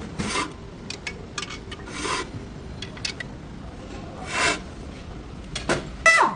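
Rear brake of a Toyota Land Cruiser making a rasping scrape that comes back about every two seconds, with light clicks in between; the last scrape, near the end, carries a short squeal falling in pitch.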